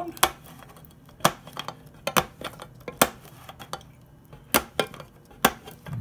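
Swiss Army knife can-opener blade levering its way around the rim of a tin can, each stroke cutting into the lid with a sharp metallic click, about one a second at an uneven pace.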